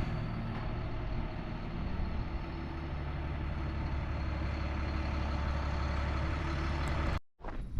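A large engine running steadily at a low, even hum, cutting off abruptly near the end.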